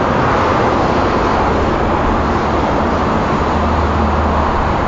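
Steady, loud rushing noise with a low rumble that swells for about a second near the end.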